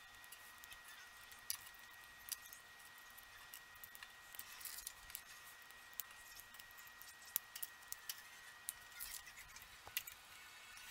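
Faint, scattered clicks and light rattling of small plastic LEGO pieces being handled and pressed together, over a thin steady high-pitched tone.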